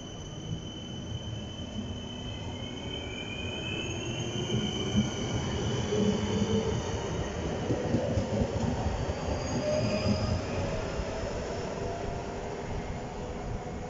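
Stadler FLIRT electric multiple unit pulling out along the platform: a steady running rumble, with high whining tones that glide up and down and a lower whine that climbs in pitch as the train gathers speed. It is loudest around the middle, as it passes.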